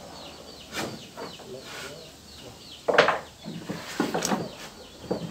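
Irregular knocks and taps of hand tools on wooden boards, about six in all, the loudest about three seconds in. A bird chirps steadily in the background, short falling chirps a few times a second.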